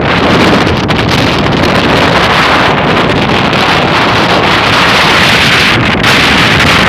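Strong wind buffeting the microphone, loud and steady, over the rush of a rough sea in big waves.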